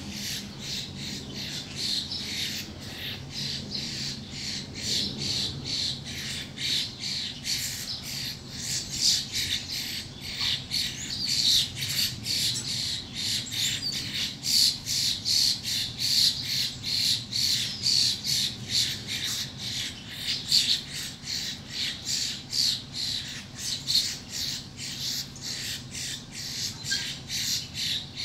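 Birds squawking in a fight: short, harsh calls repeated rapidly, about three a second, without a break.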